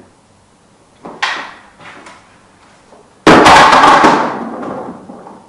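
Impact sounds from a stick-disarm drill on a wooden floor. A sharp knock comes about a second in; about three seconds in a much louder sudden crash follows and fades away over about two seconds.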